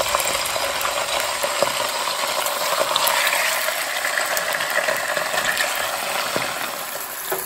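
Raw chicken pieces sizzling steadily in hot oil in a pan as more pieces are added, with a few light knocks.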